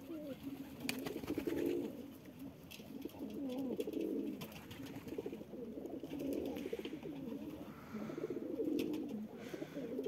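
Domestic pigeons cooing, repeated low rolling coos every second or two.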